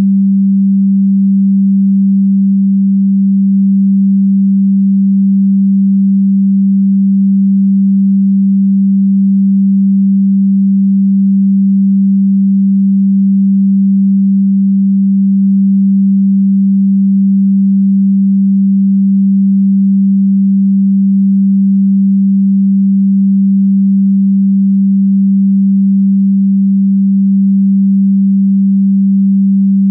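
A loud, steady pure sine tone on one low, unchanging pitch: an electronically generated 'frequency' tone of the kind played in energy-healing audio tracks.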